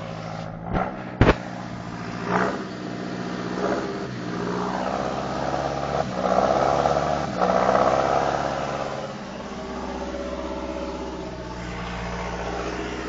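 John Deere 6420 tractor's diesel engine running steadily, with two sharp knocks about a second in and a louder, rougher stretch from about six to eight and a half seconds in.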